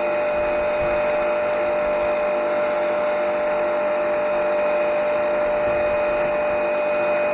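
Electric pressure washer running with a steady whine, its finest, most powerful nozzle spraying a narrow high-pressure water jet onto concrete patio slabs.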